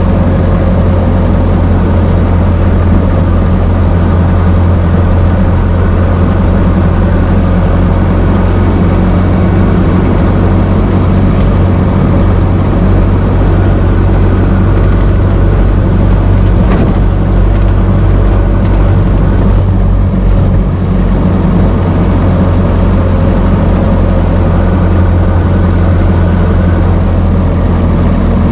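Old car's engine running steadily, a deep, even low-pitched drone.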